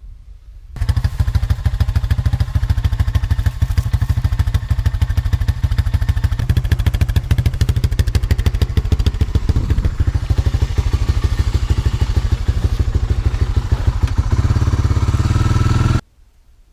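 A small gasoline engine running loud and fast, starting and stopping abruptly, with a shift in its pitch near the end.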